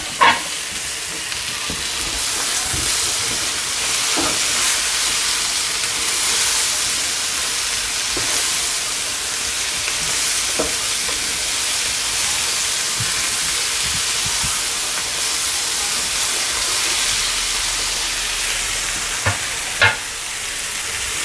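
Potatoes, string beans, tomato and red onion sizzling steadily in garlic butter in a frying pan, with a few scattered clicks of a utensil stirring against the pan.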